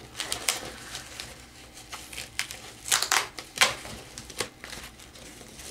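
Plastic packaging crinkling and rustling in irregular bursts as a laptop battery is unwrapped, with a few louder crackles about three to four and a half seconds in.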